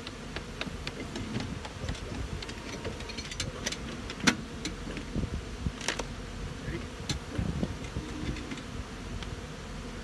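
Many honeybees buzzing in flight, with scattered clicks and knocks from wooden hive boxes being handled; one sharper knock about four seconds in.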